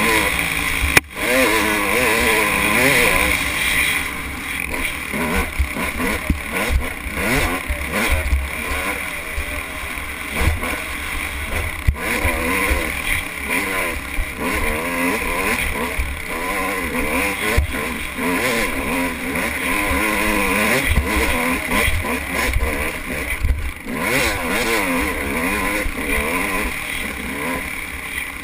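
Dirt bike engine running hard and revving up and down continually as the rider works the throttle along a rough trail.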